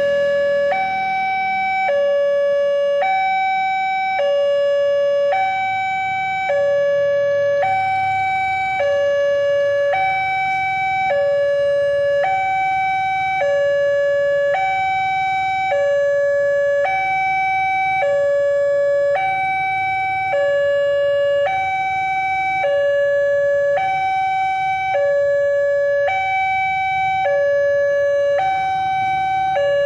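Electronic two-tone warning siren of a railway level crossing, steadily alternating a higher and a lower tone, the pair repeating about every one and a half seconds: the crossing alarm warning road traffic of an approaching train.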